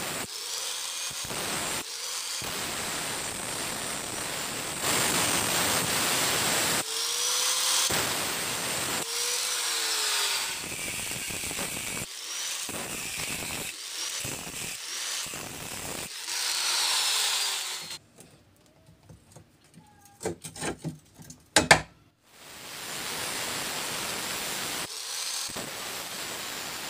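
Angle grinder with an abrasive cut-off disc cutting rusty steel flat bar held in a bench vise, the motor pitch dipping and recovering as the disc bites. About 18 seconds in the grinding stops, a few sharp metallic knocks follow, then the grinder spins back up and cuts again.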